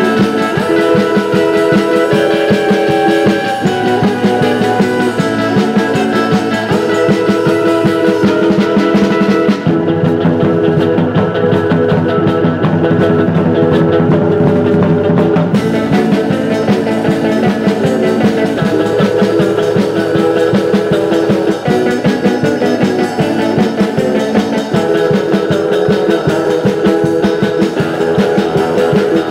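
Rock'n'roll jungle instrumental record: electric guitar over a drum kit with a steady beat. The bright top end of the mix drops away for about five seconds midway.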